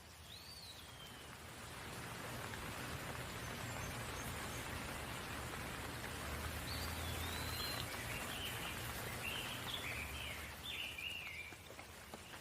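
Steady rain falling, swelling a little after the first second and easing near the end. A single bird chirp comes right at the start, and a run of quick bird chirps follows in the second half.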